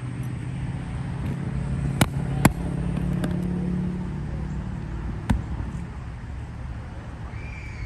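Steady low engine hum of a road vehicle, with three sharp knocks about two, two and a half, and five seconds in.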